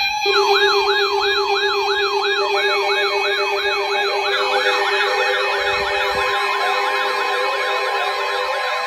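Electronic siren yelping in a fast rising-and-falling sweep, about two and a half cycles a second, over a few steady tones; after about four seconds a second overlapping sweep joins in.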